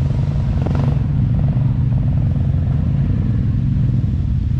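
Yamaha Grizzly ATV engine idling steadily.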